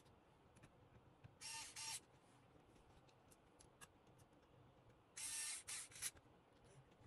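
Small electric screwdriver whirring in short bursts as it drives small screws: two brief runs about a second and a half in, then a longer run about five seconds in.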